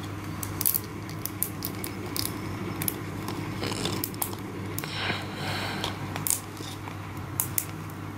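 Small irregular plastic clicks and ticks from the jointed arms of a Revoltech Woody action figure as they are turned and posed by hand, over a steady low hum.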